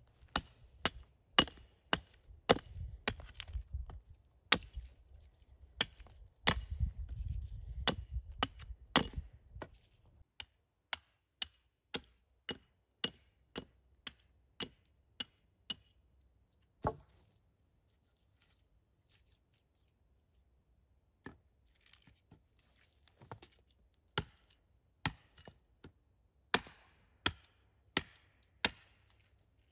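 Repeated sharp chopping strikes with a blade, coming in runs of one to two a second. There is a pause of several seconds past the middle, broken by a single strike, before the chopping resumes.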